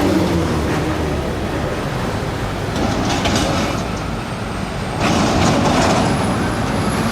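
Road traffic of heavy vehicles such as trucks and buses passing, a steady engine and tyre rumble with short hisses. The noise gets louder about five seconds in as another vehicle comes by.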